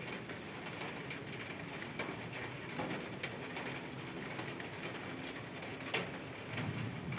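Steady rain hiss with scattered sharp drips and taps, the loudest about six seconds in. A low rumble comes in near the end.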